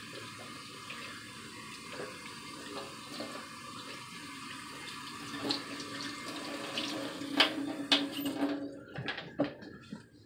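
Water running from a kitchen faucet and splashing onto a fabric baseball cap held in a stainless steel sink as the cap is wetted. A low hum joins the water partway through. The flow stops near the end, followed by a few knocks.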